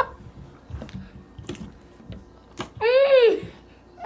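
A few faint clicks, then about three seconds in a single short vocal sound from a child, its pitch rising and then falling.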